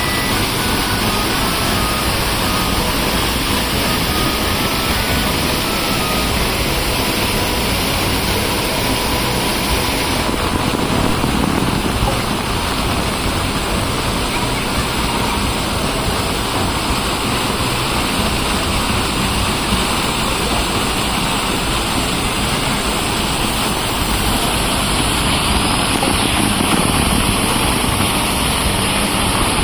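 Loud, steady noise with no distinct events; its upper hiss drops about ten seconds in.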